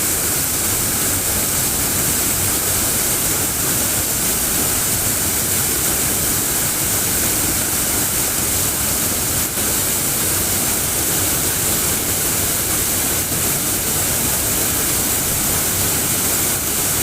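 Flowing water rushing steadily, an even unbroken hiss with no distinct splashes.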